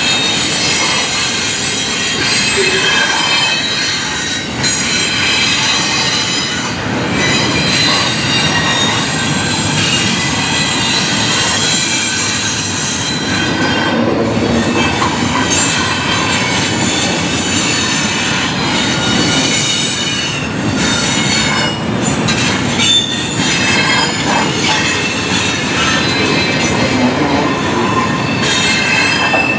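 Intermodal freight cars, double-stack container well cars and trailer flatcars, rolling past at close range: a steady rumble of steel wheels on rail, with high-pitched wheel squeal.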